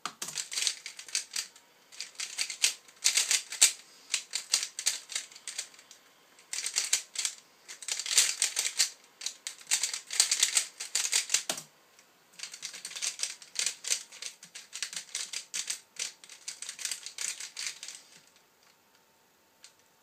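Rapid clicking and clacking of a 3x3 Rubik's cube's plastic layers being turned at speed. The clicking comes in quick bursts broken by brief pauses, with a sharper knock a little past halfway, and stops a couple of seconds before the end.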